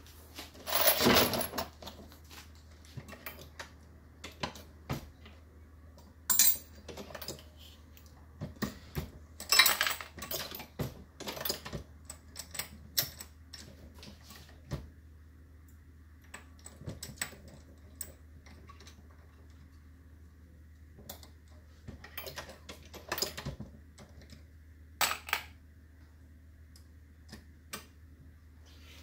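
Dillon RL550B progressive reloading press being worked by hand while loading .223 ammunition: irregular metallic clicks and clinks of the shellplate being indexed, the handle cycling and brass cases and bullets being handled, with a few louder clanks scattered through.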